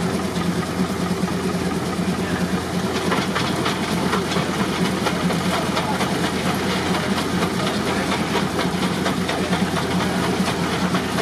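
Steam traction engine running steadily while driving a sawmill, a fast, even run of beats over a continuous rushing noise.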